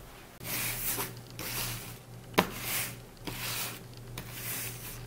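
Sock feet sliding and brushing over a hardwood floor in a series of short swishes, with a sharp tap about two and a half seconds in.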